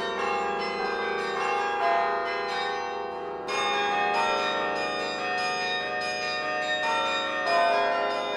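The bronze bells of the Laura Spelman Rockefeller Memorial Carillon played from its baton keyboard: a quick, dense run of struck bell notes over the lingering hum of lower bells, with a fresh loud chord about three and a half seconds in and another near the end.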